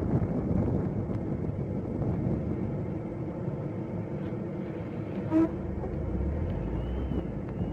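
Car driving: steady road and engine noise, with a brief squeak about five seconds in.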